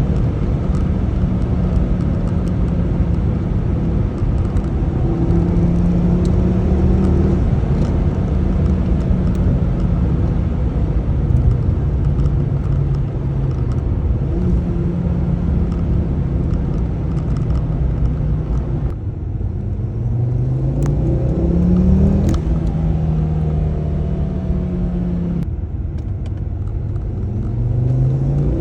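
Ford Focus ST225's turbocharged 2.5-litre five-cylinder engine, fitted with a TurboSmart wastegate actuator, running under way. Its note holds fairly steady for most of the time, then twice, in the last third, drops briefly and rises in pitch as the car accelerates.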